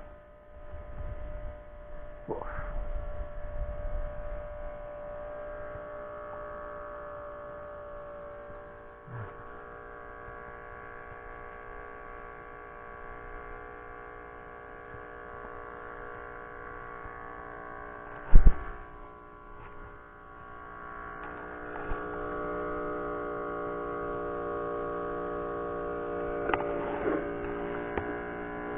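A steady hum of several held tones that grows louder about two-thirds of the way through, with one sharp knock near the middle and a few lighter clicks.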